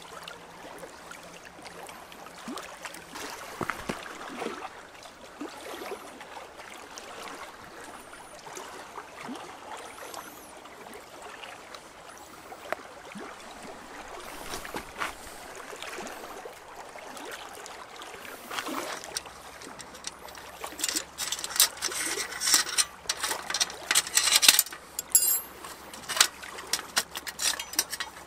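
A soft steady hiss with a few faint handling sounds. Then, about two thirds of the way in, comes a quick run of sharp metallic clinks and clatters from a small folding sheet-steel fire box being handled and set up.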